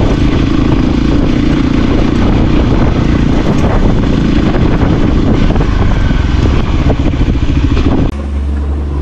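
Voge 300 Rally's single-cylinder engine running steadily while the bike rides a rough dirt track, heard from the handlebars and mixed with wind noise. About 8 s in it cuts off and gives way to a quieter, steady low hum.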